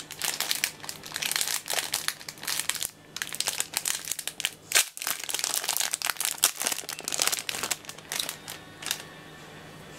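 Packaging crinkling and rustling as it is handled, in quick irregular crackles that stop about nine seconds in.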